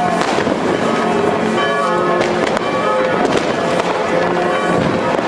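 New Year's Eve fireworks: scattered bangs and cracks of rockets and firecrackers, over a continual wash of ringing tones at many pitches.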